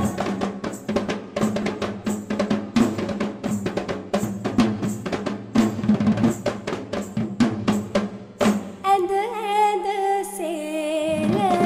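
Recorded music for a Sri Lankan traditional dance: a passage of rapid drum strokes. About nine seconds in, the drumming stops and a sustained, wavering melody carries on alone before the beat returns near the end.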